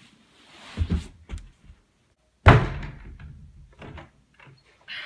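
A couple of dull thumps about a second in, then a bedroom door slams shut about two and a half seconds in, the loudest sound, followed by a few lighter knocks.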